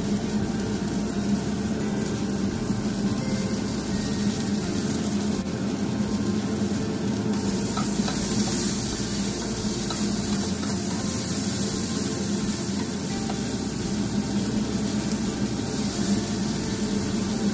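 Cherry tomatoes sizzling steadily in hot olive oil in a small non-stick frying pan while their skins char, with a few light scrapes and taps of a slotted spatula turning them.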